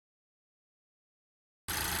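Dead silence, then near the end the sound cuts in abruptly: the steady running noise of a Honda Civic Type R FL5, a low hum under an even hiss.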